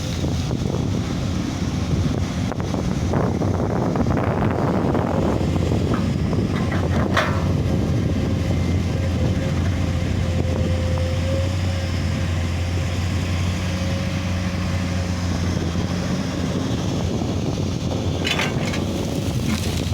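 Komatsu PC200 excavator's diesel engine running steadily as it works, with a faint steady whine above the low drone and a few sharp knocks: one about three seconds in, one about seven seconds in, and one near the end.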